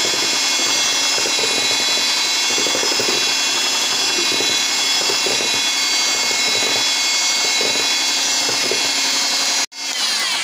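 Electric hand mixer running at a steady speed with a high whine, its beaters whisking a thin kefir batter in a plastic bowl. Near the end it is switched off and the whine falls away as the motor winds down.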